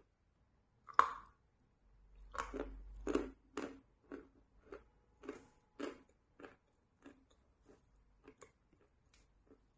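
Biting into a block of chalk coated in wet chalk paste: one sharp, loud crack about a second in. Crunchy chewing follows and fades over the next several seconds.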